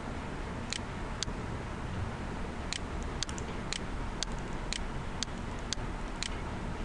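A run of short, sharp ticking clicks, about two a second, with a pause early on, over a steady low background hum.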